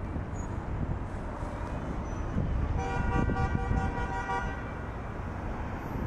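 A vehicle horn sounds once, a steady tone held for about a second and a half near the middle, over the low rumble of street traffic.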